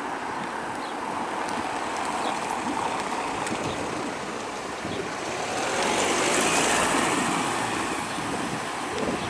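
Road traffic on a town street: cars and vans driving past with engine and tyre noise, one vehicle passing close and loudest about six to seven seconds in.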